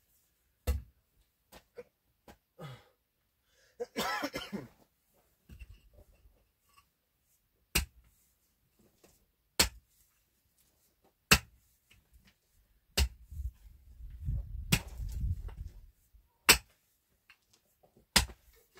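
Pickaxe striking hard, stony earth: about seven sharp blows, mostly a couple of seconds apart, with softer scraping and crumbling of loosened soil between strokes.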